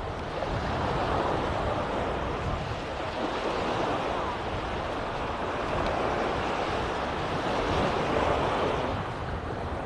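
Small sea waves breaking and washing up onto a sandy shore, the surf rising and easing in gentle surges, with a low rumble of wind on the microphone.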